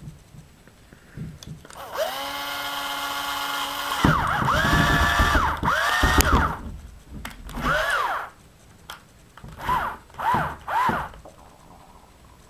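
Power drill driving screws into a plastic RC differential housing. A steady whine for about two seconds is followed by several runs whose pitch rises and falls, then three short bursts near the end.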